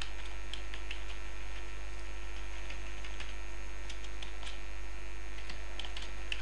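Steady electrical mains hum through the recording, with scattered faint clicks of computer keyboard keys being typed.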